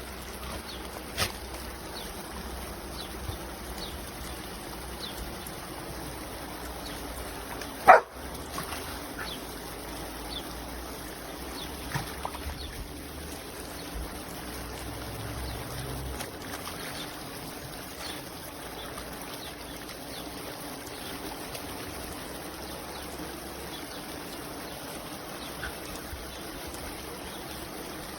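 Water spraying and trickling steadily from a dog sprinkler splash mat, with a dog barking once, loudly, about eight seconds in, and a few lighter short sounds.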